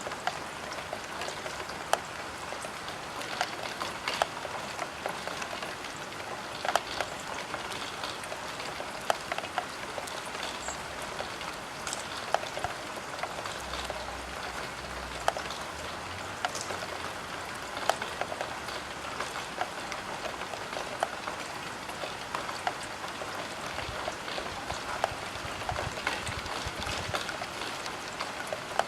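Spring rain falling on a roof window: a steady patter with frequent sharp clicks of single drops striking the pane.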